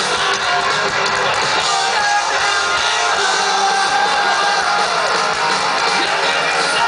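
Live punk rock band playing loud, with drums, electric guitar and a singer's vocals.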